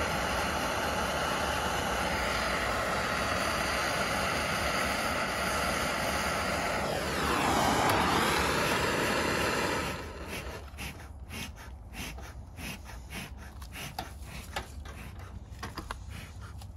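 Propane torch flame hissing steadily into the base of a bee smoker as its fuel is lit. The hiss swells about seven seconds in and cuts off suddenly about three seconds later, leaving only faint clicks and rustling.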